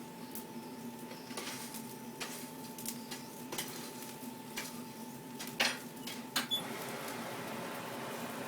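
Scattered light metal clinks and taps, two sharper ones a little past the middle, over a steady two-tone hum; a steady rushing hiss comes up in the last couple of seconds.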